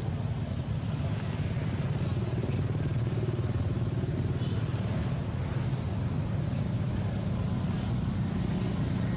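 Steady low rumble, with a few faint high chirps now and then.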